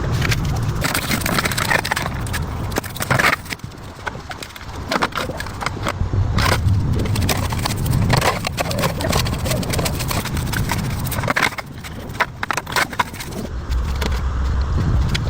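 Irregular scraping, clattering and knocking of metal from hands-on repair work on a rusty tractor, over a low rumble.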